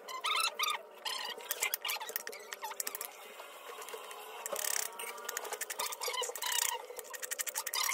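Kitchen knife chopping onion on a wooden board: quick runs of sharp taps, densest and fastest in the second half.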